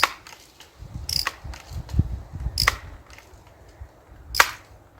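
Crosman 760 Pumpmaster multi-pump air gun being pumped: the forearm pump lever closes with a sharp click four times, about every one and a half seconds, with low handling thumps between, charging the gun for a five-pump shot.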